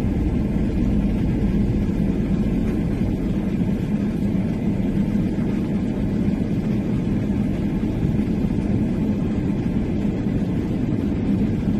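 Steady low rumble of a car driving, heard from inside its cabin, with no distinct knocks or other events.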